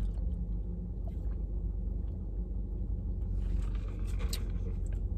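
Steady low rumble inside a car's cabin, with a few faint eating sounds about two-thirds of the way through.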